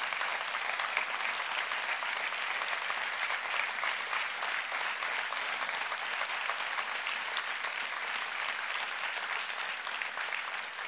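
A large audience applauding steadily, a dense clatter of many hands clapping that eases off slightly near the end.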